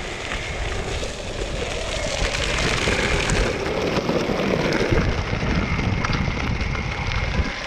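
BajaBoard S2 Atrax electric all-terrain skateboard's pneumatic tyres rolling and skidding over loose dirt and gravel on a steep descent, the rear wheels locking under braking.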